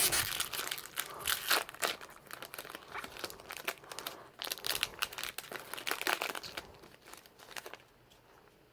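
Foil booster-pack wrapper of Yu-Gi-Oh trading cards crinkling and tearing as the pack is opened by hand, a run of irregular rustles and crackles that dies away near the end.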